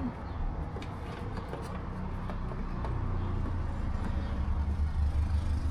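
Low, steady motor-vehicle rumble that grows a little louder toward the end, with a few faint clicks of small tools being handled.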